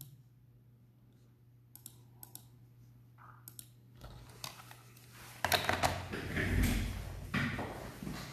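Typing and clicking on a laptop keyboard over a low steady hum: a few isolated taps at first, then a busier run of clicks mixed with knocks and handling noise from about halfway in.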